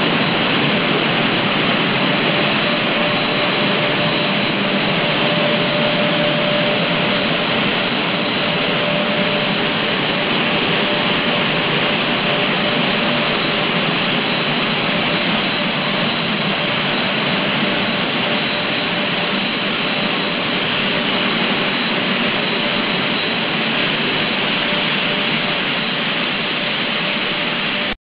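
PVC/WPC parallel twin-screw extruder pelletizing line running: a loud, steady mechanical whir and rush of air from its motors and the pellet-conveying blower, with a faint steady hum tone. It cuts off suddenly at the end.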